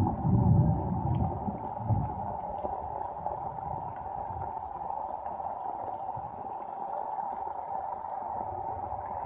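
Steady rain falling on flooded rice fields, an even watery hiss with faint scattered drips. A few low rumbles come in the first two seconds.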